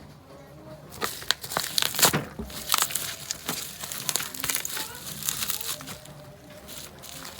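Packaging being handled and opened during a dashcam unboxing: plastic and cardboard crinkling and rustling in quick irregular crackles, starting about a second in.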